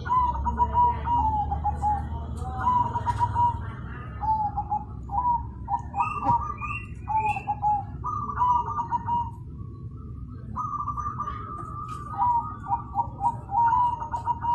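Zebra dove (perkutut) cooing its song in repeated rolling, trilled phrases with short gaps and a brief pause about two-thirds of the way through, over a steady low background hum.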